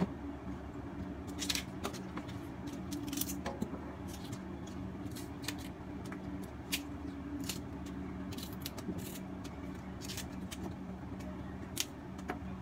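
Chinese kale stems and leaves snapped and torn apart by hand: a run of short, crisp snaps and leafy rustles, irregularly spaced, over a steady low hum.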